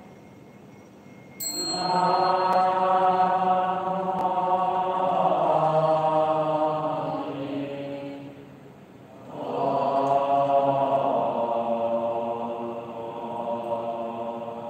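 Buddhist devotional chanting in long, slowly sliding held notes. It starts abruptly about a second and a half in, dies away just after 8 seconds, and resumes about 9 seconds in.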